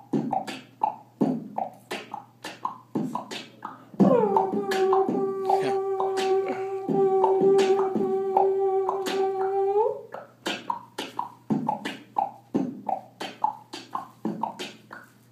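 Beatboxing: a steady beat of vocal percussion hits made with the mouth. From about four seconds in to about ten seconds in, a long held hummed note at one steady pitch sounds over the beat.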